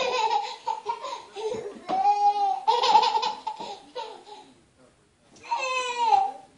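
Toddler laughing and squealing: high-pitched shrieks mixed with short bursts of giggling, in several bouts with a brief pause a little past the middle.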